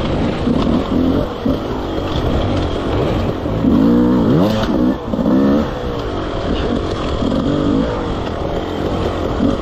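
Dirt bike engine heard from on board during an enduro ride, its revs swinging up and down as the throttle is opened and closed in short bursts, with the hardest revving about halfway through.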